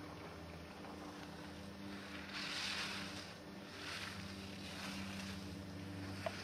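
Skis carving on hard-packed snow: a series of hissing swooshes as the racer turns through the gates, over a steady low hum. A single sharp tap near the end.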